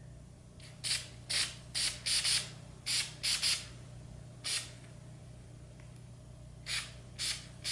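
Aerosol can of white spray paint sprayed in a dozen or so short hissing bursts through a paper stencil, in quick clusters, with a pause of about two seconds before the last few.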